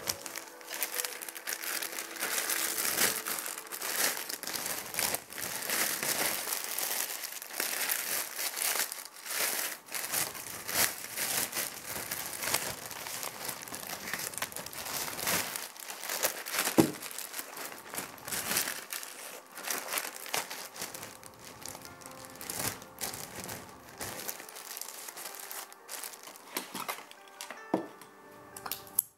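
Dense crinkling and crackling, like something being crumpled, made of many small sharp clicks, with one sharper snap a little past halfway.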